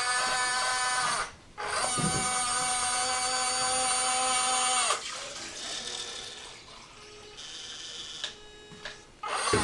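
Small geared electric motor on a 1/16 scale RC tank whining as it drives the mounted airsoft gun up and down, under proportional remote control. It runs in long stretches that wind down at the end, goes on more faintly for a few seconds, then starts up loudly again near the end.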